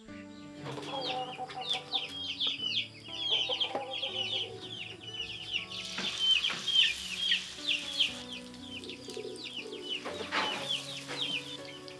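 Chickens clucking and chirping rapidly, over soft background music. From about six seconds in, battered tempe slices are laid into hot oil in a wok and sizzle, with a fresh burst of sizzling near ten seconds.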